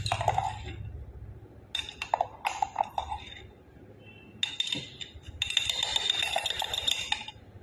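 Metal spoon stirring in a glass mug, clinking rapidly against the glass with a bright ring, in two runs: a short one about two seconds in and a longer one from about four and a half seconds until just before the end.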